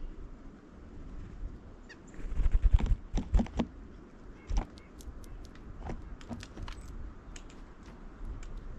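Birds at a feeder in the snow: scattered short high chirps and light taps and clicks, with a cluster of louder low rumbling bursts about two to three seconds in.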